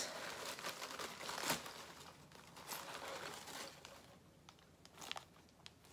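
Packaging crinkling and rustling as an item is lifted out of a box and handled. It is busiest in the first couple of seconds and grows fainter near the end.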